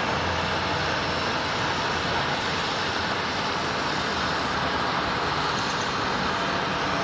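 Steady jet engine noise from an Airbus A350-900 with its Rolls-Royce Trent XWB turbofans.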